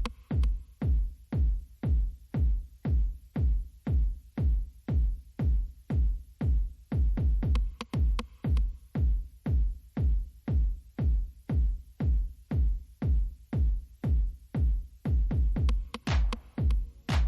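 Electronic background music with a steady kick-drum beat about twice a second; brighter sounds join near the end.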